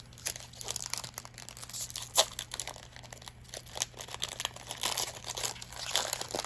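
Plastic Magic: The Gathering booster pack wrapper crinkling and tearing as it is ripped open and handled. A run of irregular crackles with one sharper snap about two seconds in.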